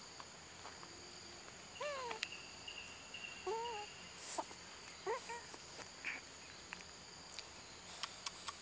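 A young monkey's short, high, squeaky calls: three brief rising-and-falling pairs of notes about a second and a half apart. Behind them runs a steady high buzz of forest insects.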